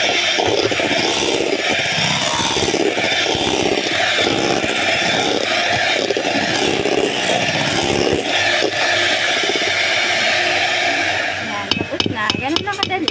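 Handheld electric mixer running steadily, its beaters whipping cream in a metal bowl. Near the end the motor sound gives way to a quick series of sharp taps and clinks against the bowl.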